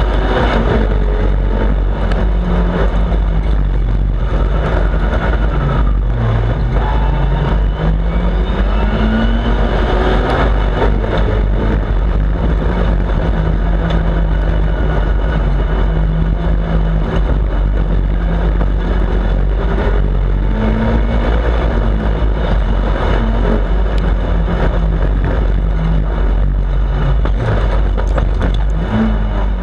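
Off-road racing buggy's engine at speed, revving up and dropping back again and again as it accelerates and shifts gear, over a heavy low rumble on the onboard microphone.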